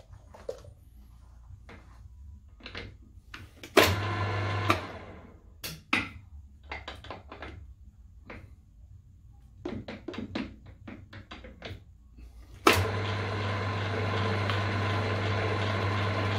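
Clicks and knocks of metal tools and parts being handled on a milling machine's vise. The milling machine's electric motor is switched on briefly about 4 seconds in, then starts again near the end and runs with a steady hum.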